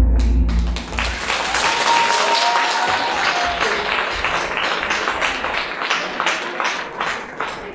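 A song ends within the first second, and an audience applauds; the clapping slowly fades toward the end.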